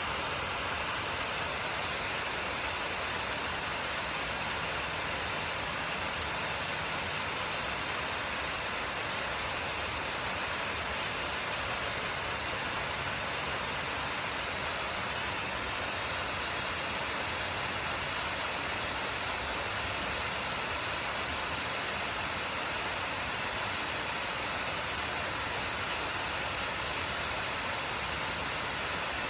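Waterfall running steadily: a constant, even rush of falling water.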